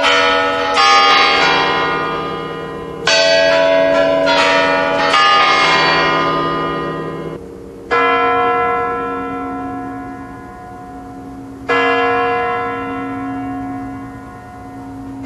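The Kremlin's Spasskaya Tower clock bell striking midnight. It sounds five strokes, two to four seconds apart, each ringing on and slowly fading.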